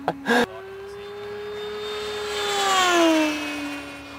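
Great Planes Revolver electric RC airplane passing at high speed: the whine of its 16x16 propeller, driven by an AXI outrunner motor, grows louder, drops in pitch as the plane goes by about three seconds in, and carries on lower as it flies away. A few sharp knocks in the first half-second.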